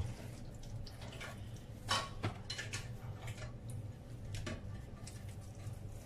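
Soft handling noises and a few light taps as oiled dough balls are worked by hand and set down in a steel plate, over a low steady hum.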